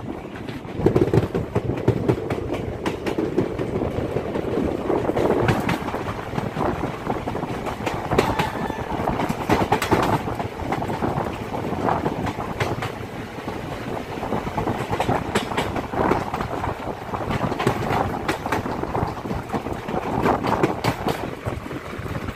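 Indian passenger train running at speed, heard from the side of a coach: steady rumble and rush, with irregular clacks of the wheels over the track.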